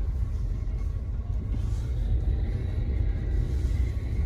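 Low, steady engine and road rumble of a vehicle towing a trailer as it pulls in to park.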